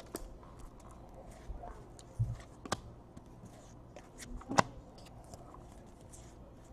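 Quiet handling of trading cards: soft sliding and a few light clicks and taps, with a low thump about two seconds in and the sharpest click about four and a half seconds in.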